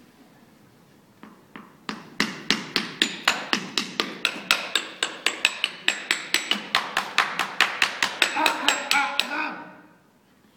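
Wooden drumsticks striking a hard surface in a steady, even rhythm of about four to five strikes a second, starting about two seconds in and stopping shortly before the end.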